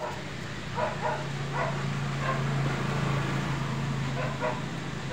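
A dog barking, about six short barks spread across a few seconds, over a steady low hum that stops near the end.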